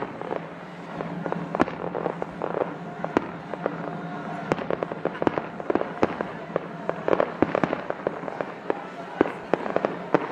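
Fireworks going off in quick succession: many sharp bangs and cracks at irregular intervals, over a steady low hum.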